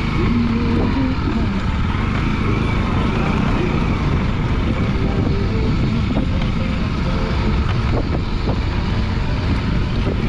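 Motorcycle engine running steadily as the bike rides over a rough dirt road, its note shifting a little, with a few knocks from the bumps.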